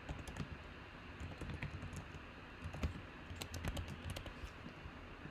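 Typing on a computer keyboard: irregular key clicks, with a quicker run of them between about three and a half and four and a half seconds in.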